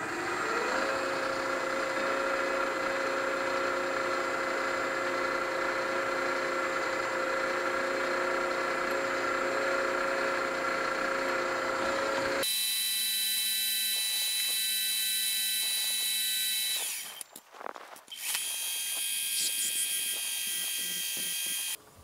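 Drilling-machine spindle starting up and running steadily while it drills a small steel drill-rod connecting rod. About twelve seconds in the sound changes abruptly to a higher whine, drops away briefly a few seconds later, then carries on and stops sharply near the end.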